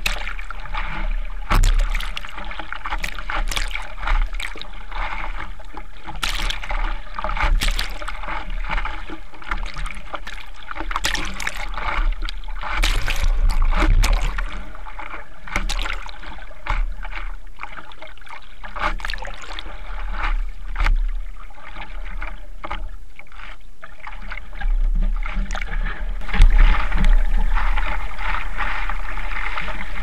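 Sea water sloshing and splashing against a surfboard as the surfer paddles, heard close up from a camera on the board's nose, over a steady low rumble. The splashing gets louder near the end.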